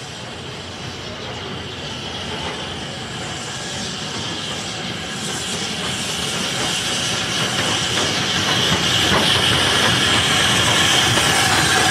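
Southern Railway U class 2-6-0 steam locomotive No. 1638 and its coaches running into the station, growing steadily louder with a rumble and hiss. A high squeal comes in near the end as the train slows at the platform.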